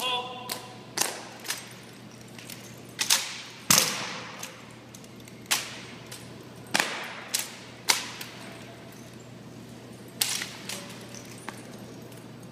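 Sharp slaps and knocks of drill rifles, M1 Garands, being spun, caught and grounded in silent precision drill. About a dozen irregular hits, some close together and others a second or more apart, each echoing briefly off hard walls.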